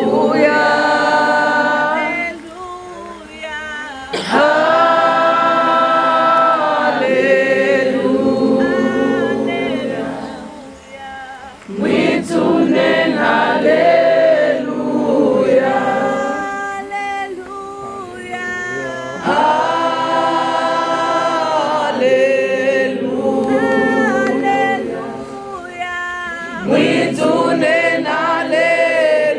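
A large crowd singing an unaccompanied choral song in unison and harmony, with long held notes and short pauses between lines.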